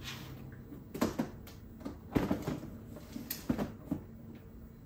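Plastic food containers being set down and shuffled on the shelves of an open refrigerator freezer. A series of light knocks and clatters comes in clusters, the loudest about one and two seconds in.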